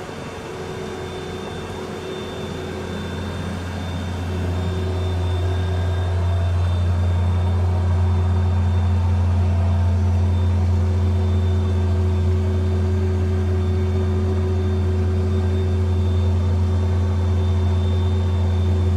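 Tractor engine running steadily under load while pulling a roller crimper, a low steady hum that grows louder over the first few seconds and then holds.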